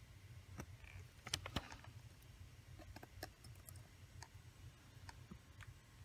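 Faint, scattered small clicks and ticks of the calculator's metal plate and its tabs being pressed down and twisted with pliers, the loudest pair about a second and a half in.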